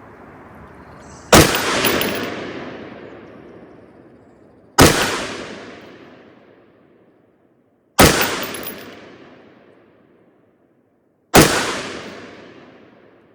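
Four single AR-15 rifle shots, about three and a half seconds apart, each followed by a long echo that dies away over two to three seconds.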